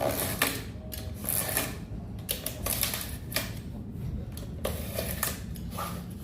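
Irregular sharp clicks and taps, a dozen or so spread unevenly, over a low steady hum.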